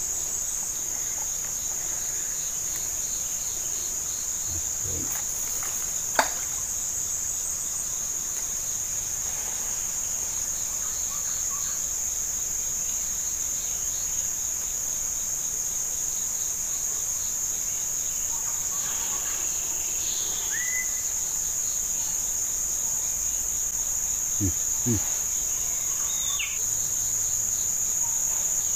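Steady, high-pitched drone of insects calling without a break.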